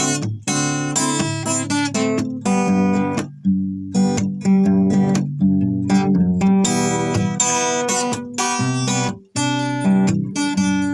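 Acoustic guitar strummed in chords, with a brief break near the end.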